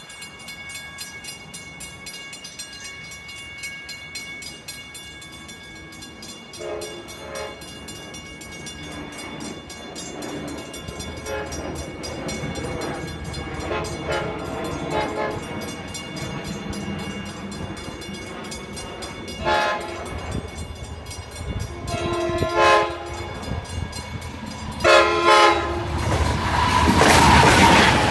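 Long Island Rail Road push-pull train of bi-level coaches approaching and sounding its horn in several blasts that grow louder as it nears. A steady grade-crossing bell dings under it, and in the last couple of seconds the train runs past close by with loud wheel and rail noise.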